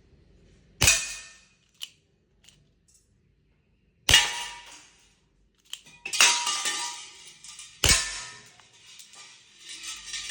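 CO2-powered 6mm revolver airgun firing four sharp shots a few seconds apart, each with a short ringing tail, with light clicks of the action between the first two shots.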